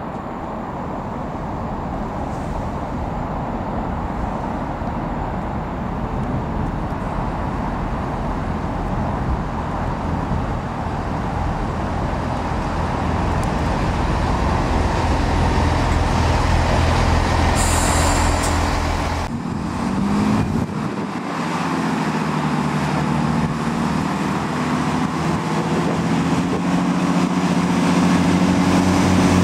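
Great Western Railway Class 165 diesel multiple unit drawing into the platform, its running noise growing steadily louder as it nears. A brief high squeal about two-thirds of the way through, then the rumble drops away suddenly and the diesel engines' steady hum takes over, rising again near the end.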